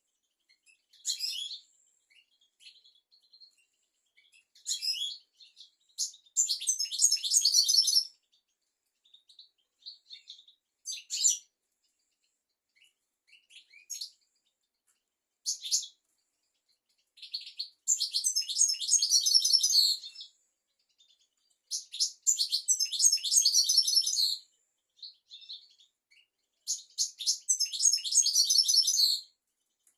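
European goldfinch song: a series of high, rapid twittering phrases separated by short pauses, the longest lasting two to three seconds. It is a tutor recording for teaching young goldfinches and canaries their song.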